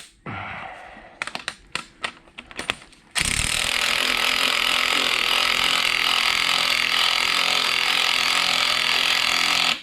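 A few clicks as a tool is fitted, then about three seconds in a power tool starts driving the threaded rod of a coil-spring compressor, running steadily for about six seconds and stopping abruptly, compressing the strut's coil spring one side at a time.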